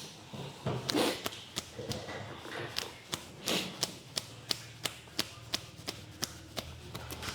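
Hands striking skin in quick percussive massage strokes: a string of sharp slaps and chops, about three a second and slightly irregular, with a few softer swishing rubs between them.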